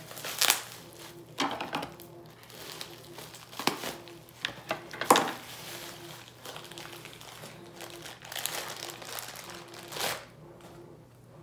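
Clear plastic wrapping crinkling and rustling in irregular bursts as it is pulled open by hand to unwrap a watch.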